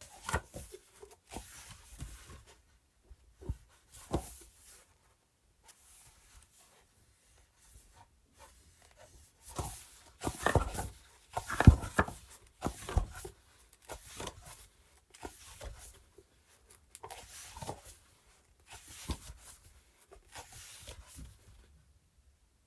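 Pages of a book being flipped through by hand: irregular papery rustles and flicks, some quick runs of pages, busiest and loudest about halfway through.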